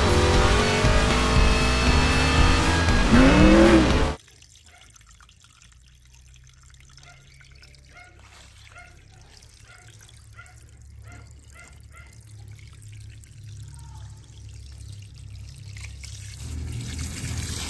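Race car engine at speed, loud and full, its pitch rising near the end, cutting off suddenly after about four seconds. Then a quiet background with faint, evenly repeated soft chirps.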